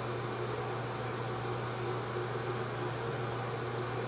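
Steady low hum over a faint even hiss: room noise, with nothing starting, stopping or changing.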